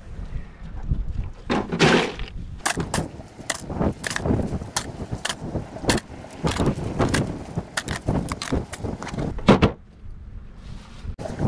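Fish being packed onto ice in a plastic cooler box: a rustle about two seconds in, then a run of sharp knocks and clatter from handling, the loudest a clack near the end as the cooler lid is shut.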